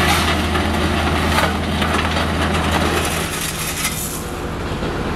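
Road roller's diesel engine running steadily over crunching gravel; about three seconds in the engine hum drops away, leaving shovels scraping and crunching through crushed stone.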